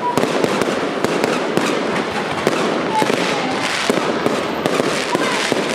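Aerial fireworks going off in quick succession, a dense run of cracks and bangs with a few short whistling tones.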